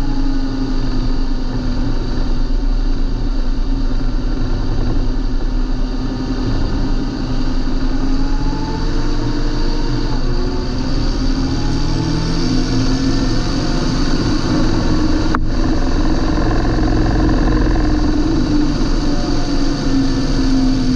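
John Deere 8320 tractor's diesel engine running steadily, its pitch wavering slightly up and down. A single sharp click about three quarters of the way through.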